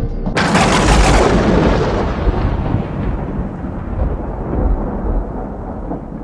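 A sudden loud rush of rumbling noise about half a second in, which dies away slowly over several seconds: the hiss fades first and a low rumble lingers, like a dramatic soundtrack sound effect.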